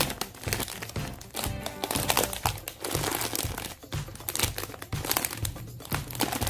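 Clear plastic crispack bag crinkling and crackling as a squishy toy is pressed into it by hand, over background music with a steady low beat.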